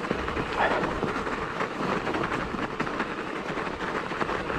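Knobby mountain-bike tyres rolling over frozen, trampled snow: a steady crackle of many small crunches.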